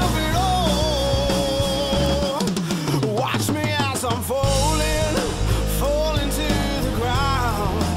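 Rock music with drums and a wavering lead melody. About two seconds in, the bass and drums drop out for roughly two seconds, then come back.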